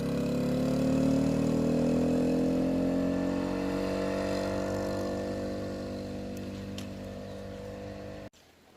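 1979 Honda CT90's small single-cylinder four-stroke engine, fitted with an aftermarket muffler, pulling away up a steep hill. Its pitch rises over the first couple of seconds, then holds and fades as the bike moves off, and the sound cuts off abruptly near the end.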